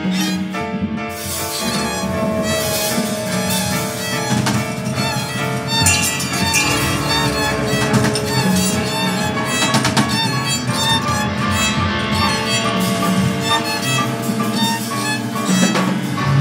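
Free-improvised jazz ensemble playing live: bowed violin over upright piano, drum kit with cymbals, and electric guitar, in a dense, continuous texture.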